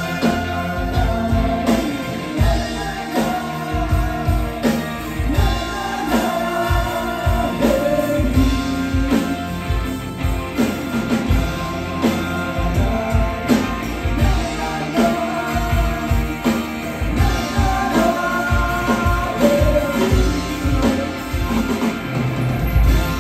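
Four-piece band playing live: electric guitar, bass guitar, drum kit and keyboard under a man's lead vocal, over a steady drum beat.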